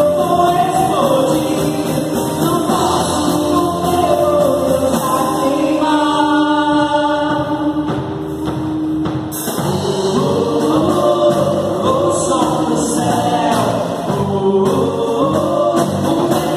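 An evangelical worship group rehearsing a gospel song: voices singing over band accompaniment. Near the middle they hold one long chord, and then the full band comes back in.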